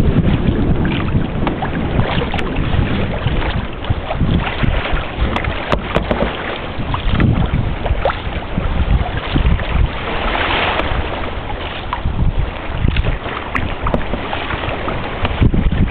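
Wind buffeting the microphone over the steady rush and splash of water along a sailing kayak's hull.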